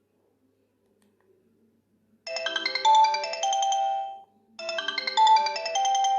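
Sony Ericsson K510i mobile phone playing a ringtone: a short melody of quick, high pitched notes that starts about two seconds in and plays twice, with a brief gap between.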